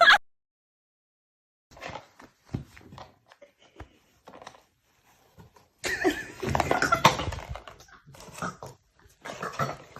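Sounds of a pet animal: scattered short noises, then a louder stretch of cries from about six seconds in, and another short burst near the end.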